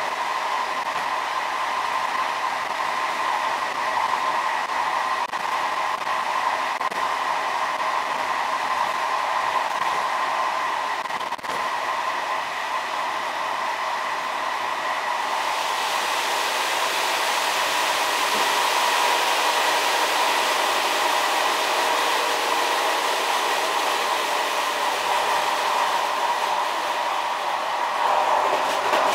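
Train running along the track, heard from the driver's cab: a steady rushing noise with a constant whine in it. About halfway through it grows brighter and a little louder.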